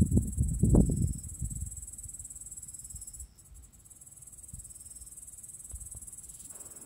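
Crickets chirring in a steady, high-pitched trill that drops out briefly about three seconds in and then resumes. A low rumble in the first second and a half is the loudest sound.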